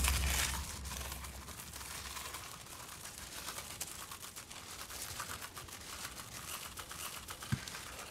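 Faint, rapid crinkling and crackling of wrapping being handled, a dense run of tiny ticks. A deep boom dies away at the very start, and there is one soft thump near the end.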